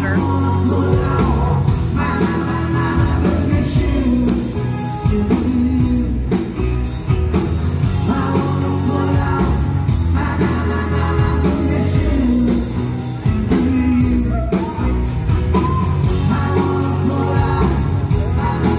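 A live band playing rock and roll, with a singer over guitar, keyboard and a steady drum beat.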